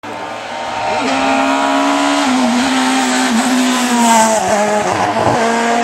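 Rally car engine running hard at high, steady revs, its pitch falling about four and a half seconds in.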